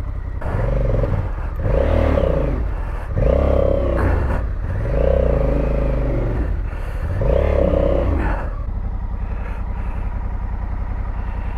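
Honda Africa Twin CRF1100L's parallel-twin engine revved in about five hard surges, rising and falling, as the bike struggles through deep mud. It then settles to a steady, lower running note about three-quarters of the way through.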